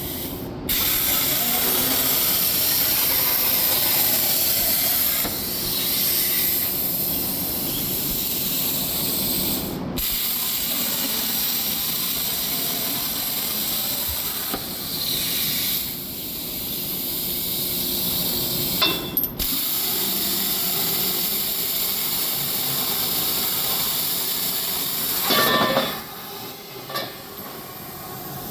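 CNC plasma cutter running, its arc giving a loud, steady hiss that breaks off briefly a few times and turns quieter near the end.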